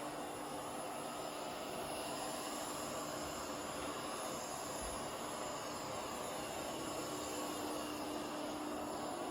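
Ecovacs DEEBOT X1 OMNI robot vacuum running: a steady whir with a constant low hum.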